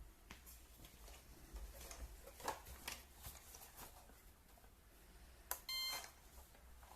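Faint handling clicks and rustles, then near the end a single short electronic beep lasting about half a second.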